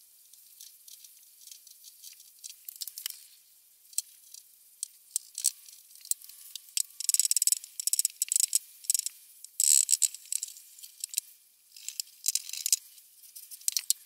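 Rag rubbing wood stain onto a veneered drawer top, making scratchy, crackling rubs in irregular bursts that are busiest in the middle of the stretch.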